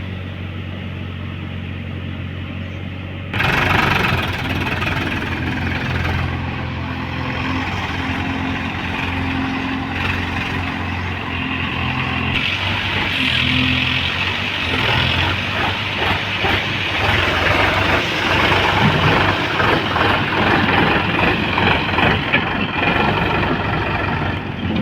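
JCB 3DX backhoe loader's diesel engine running steadily, then revving up hard about three seconds in and working under load, with a rough, busy clatter over the engine note.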